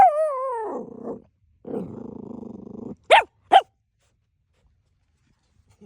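Chiweenie puppy vocalising in play: a long falling cry at the start, a rough growl about two seconds in, then two quick sharp barks.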